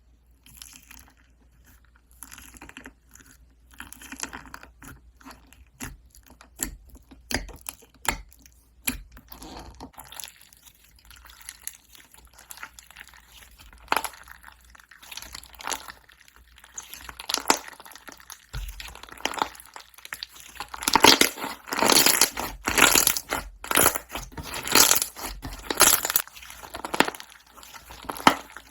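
Close-miked crunching, a dense run of irregular crisp crackles and clicks that grows louder for the last third.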